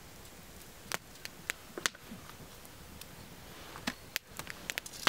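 Sharp clicks and taps as a small bottle and other small items are handled and set down on a rock. There are a few separate taps about a second in, then a quicker cluster of clicks near the end.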